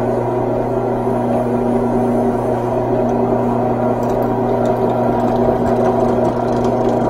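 Drill press motor running steadily with a constant hum while a twist drill bores through a flat metal piece. From about four seconds in, faint scratchy ticks of the bit cutting and throwing off curled chips join the hum.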